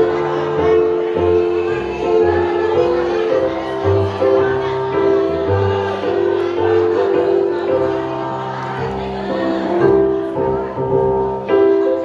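Adult choir singing in parts, holding long notes over a moving lower line.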